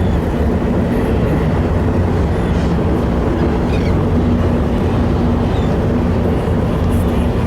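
Steady drone of a ferry's diesel engines, a constant low hum under a rumbling rush of wind and water.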